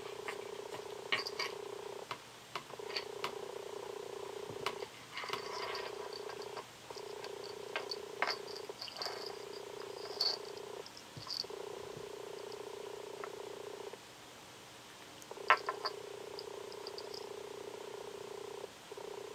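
Domestic cat purring close up, a steady hum that pauses briefly every couple of seconds as it breathes. Scattered light clicks and high tinkles run over it, with one sharper tap about fifteen seconds in.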